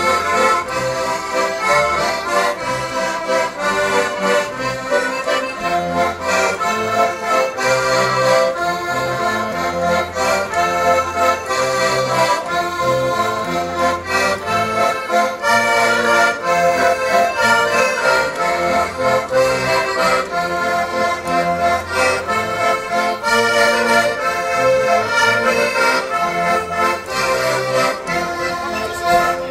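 An ensemble of heligonkas, Polish highland diatonic button accordions, playing a Górale folk tune together, with bass notes under the melody.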